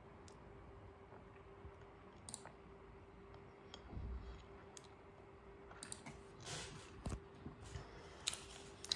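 About half a dozen faint, sharp clicks at irregular intervals over a faint steady hum, with a few soft low rumbles in the middle.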